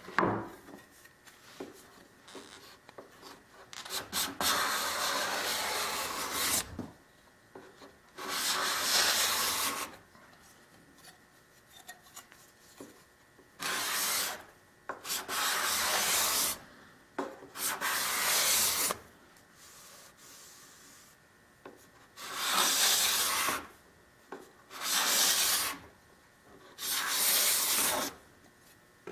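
A wooden surface being worked by hand in eight long dry rubbing strokes, each lasting one to two seconds, with short pauses between them.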